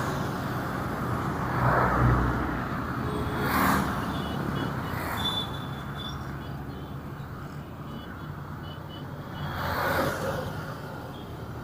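Street traffic: a low steady engine hum, with several vehicles passing close by one after another, each swelling and fading away.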